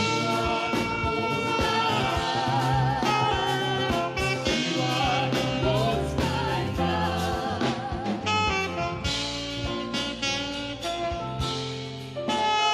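Gospel worship music: a saxophone playing a slow melody with vibrato over a backing track with bass and drums.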